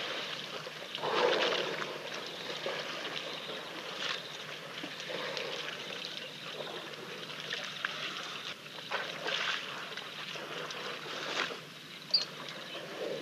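Water splashing and trickling at a waterhole, in uneven surges, the strongest about a second in. A short high chirp near the end.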